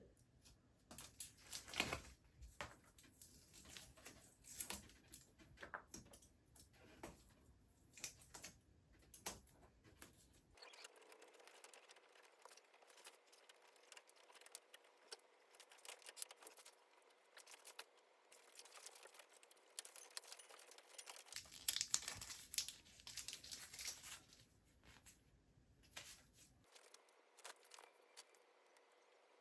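Faint, irregular crinkling and peeling of bicycle handlebar tape as it is worked by hand, with scattered sharp rips and rustles, a louder cluster about two seconds in and another about twenty-two seconds in.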